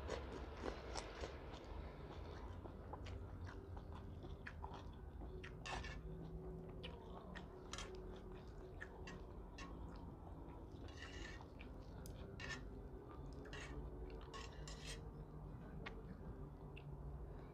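Faint eating sounds: a person chewing and slurping vermicelli noodles, with scattered short clicks.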